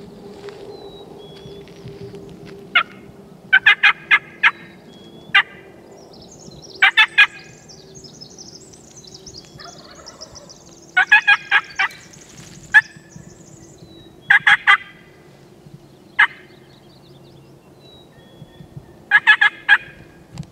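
Wild turkey toms gobbling, about five loud rattling gobbles spaced a few seconds apart, with a few single sharp notes between them.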